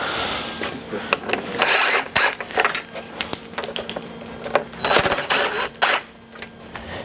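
Teardown handling of a car's plastic front-end parts and fasteners: a run of sharp clicks and knocks with short scraping, rattling bursts, the two longest about a second and a half and five seconds in.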